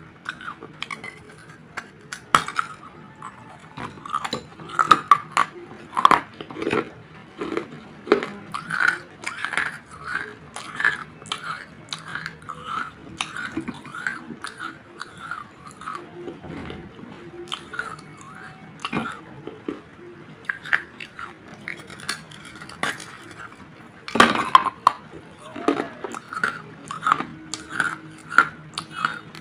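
Biting and chewing pieces of a baked terracotta clay bowl: repeated sharp, brittle crunches, with a cluster of louder bites about 24 seconds in.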